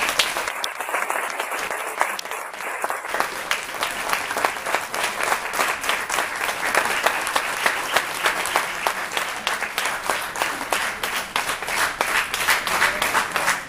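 Applause: many people clapping their hands at once, a dense, steady patter of claps.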